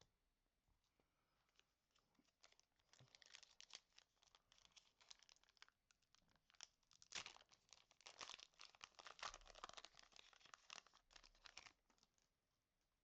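Pokémon booster pack wrapper being torn open and crinkled, a long run of crackling rustles that is loudest about seven to eleven seconds in.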